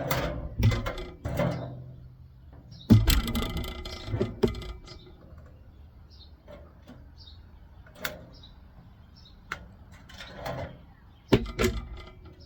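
Knocks and clatter of salvaged parts being handled and dropped while a microwave's power unit is taken apart, loudest in a burst about three seconds in and again near the end, with a few single clicks between.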